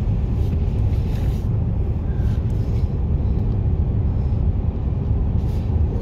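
Steady low rumble of a car's engine and tyres heard from inside the cabin while driving on a snow-covered highway, with a few faint swishes of the windshield wiper.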